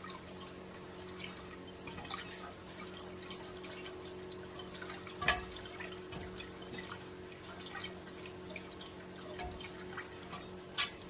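Whisk clicking and scraping against the sides of a saucepan as a thin sauce is whisked: light, irregular ticks, with a sharper clack about five seconds in and another near the end. A faint steady hum runs underneath.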